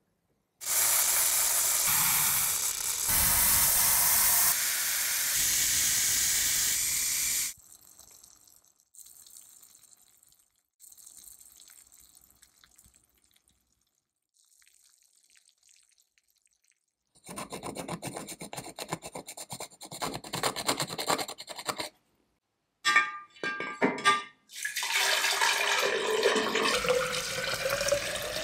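An aerosol can of paint stripper sprayed in one long, even hiss lasting about seven seconds. Faint fizzing and a stretch of crackling follow as the stripper bubbles on the old paint. Near the end, water is poured into a glass vessel, its pitch rising as the vessel fills.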